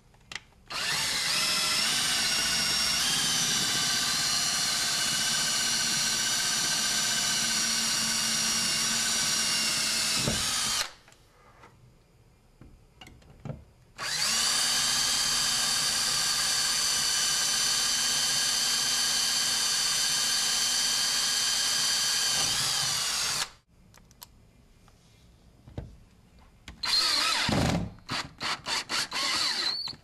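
Power drill driving screws: two steady whining runs of about ten seconds each, then a string of short trigger bursts near the end.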